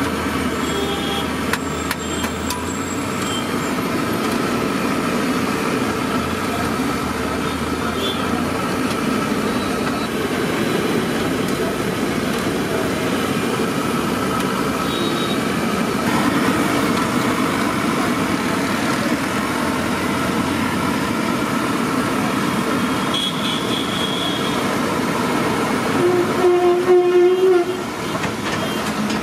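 Bread bajji deep-frying in a kadai of hot oil, the oil sizzling steadily over constant street traffic noise. A horn sounds once, for about a second and a half, near the end.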